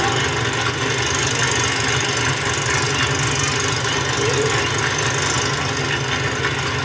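Stock car engines idling, a steady rumble under a high hiss.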